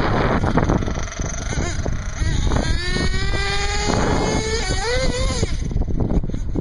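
1/8-scale nitro RC truggy's engine running at high revs: a high whine that holds steady for a couple of seconds from about two seconds in, then wavers up and down with the throttle before fading. Wind noise on the microphone at the start.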